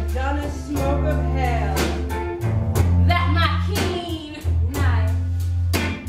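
Live band music: a steady bass line and regular drum hits, with a voice singing over it.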